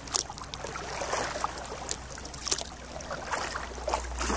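Kayak paddle strokes in lake water: repeated splashes and drips about once a second. A steady low rumble grows stronger near the end.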